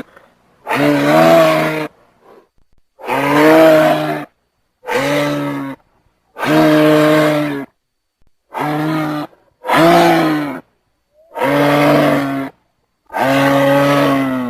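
Giraffe calling, about eight loud calls in a row, each a second or so long on a steady low pitch, separated by short silent gaps.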